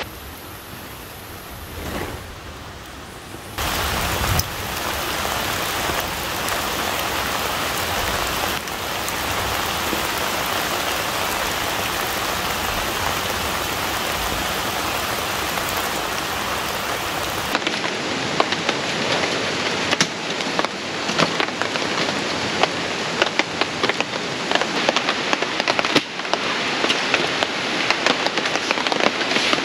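Steady hiss of falling rain, quieter for the first few seconds and then louder. From a little past halfway, many sharp ticks of drops striking a surface.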